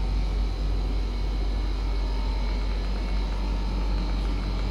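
Steady low rumble with a faint hiss and a few faint steady hum tones, even throughout with no distinct events.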